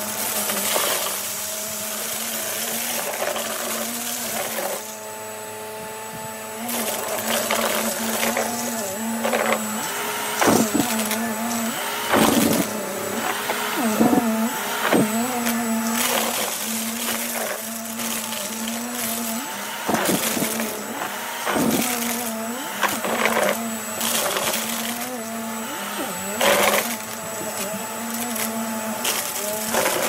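Vacuum cleaner running with a steady motor hum on a thick shag rug, pushed quickly back and forth, with repeated sharp crackles and pops as it picks up scattered debris. The sound drops and thins briefly about five seconds in.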